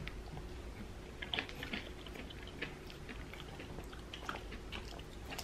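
Close-up chewing of a mouthful of salad: faint, soft crunches and wet mouth clicks at irregular intervals.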